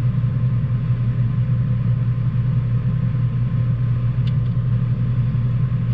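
A steady, loud low hum with no change in pitch. A faint single click comes about four seconds in.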